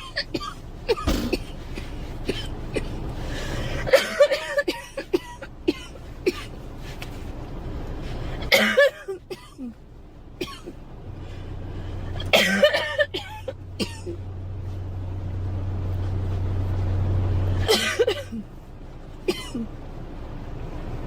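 A girl coughing in separate fits of a few sharp coughs each, a few seconds apart. A low steady hum runs under the middle stretch.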